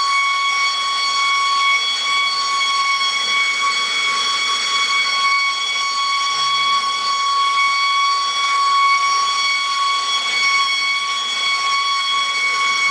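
Gas torch flame hissing steadily while heating a bare patch of car body panel for tinning, with a steady high whistle over the hiss.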